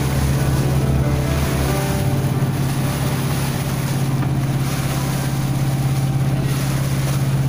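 Boat engine running at a steady, unchanging low hum while under way on the river, with a hiss of water and wind over it.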